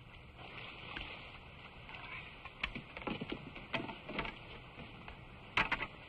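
Water splashing as a canoe is brought in through the shallows, then a scuffle at the water's edge: a run of sharp thuds and knocks, the loudest two close together near the end.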